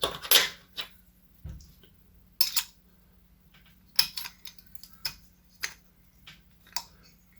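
Sharp metallic clicks and clinks of a doorknob lock's parts being fitted back together, a single click or two every second or so, as a part that should snap into place is pushed and tried.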